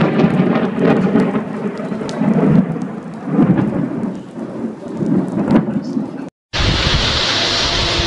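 Thunder rumbling in uneven swells with rain falling. About six seconds in, after a brief dropout, it gives way to a steady hiss of heavy rain and wind.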